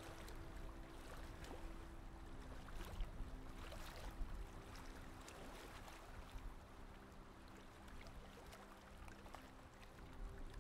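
Water rushing and splashing along the hull of a monohull sailboat running downwind under its jib, a soft uneven wash.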